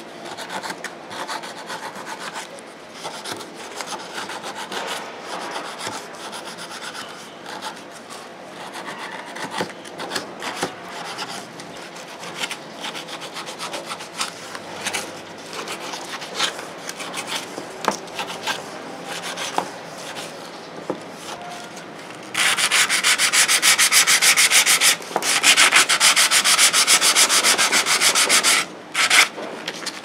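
Irregular scraping and rubbing on a butterfly knife (balisong), with small clicks. About three-quarters of the way through comes a loud run of fast sandpaper strokes on the knife, broken once by a short pause.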